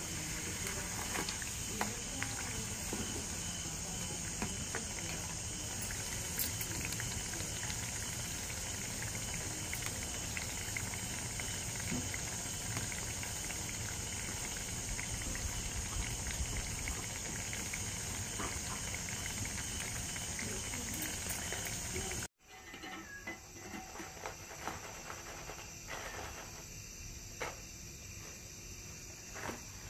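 Fritters sizzling as they deep-fry in oil in a clay pot, with crickets chirping steadily. About two-thirds of the way through the sound cuts off and comes back quieter, with a few light clicks.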